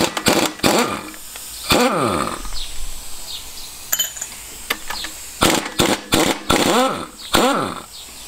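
Pneumatic impact wrench undoing the 13 mm big-end bearing cap fasteners in several short bursts. Each burst ends in a falling whine as the tool spins down.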